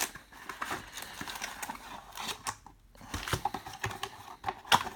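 Trading card box and packs being handled: scattered light clicks, taps and rustles of cardboard and wrappers, with a sharper click near the end.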